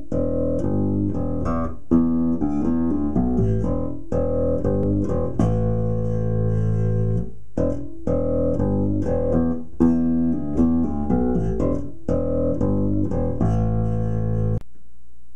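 Four-string electric bass guitar playing a rock tune: runs of quick plucked notes with held chords between them. The playing stops abruptly near the end, leaving a low hum.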